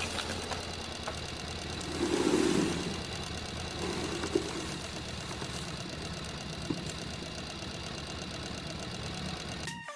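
Steady engine-like idling drone, with a louder surge about two seconds in and a smaller one about four seconds in.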